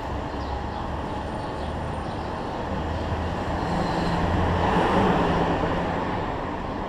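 City street traffic noise, with a motor vehicle engine's low hum that grows louder about four to five seconds in and then eases off.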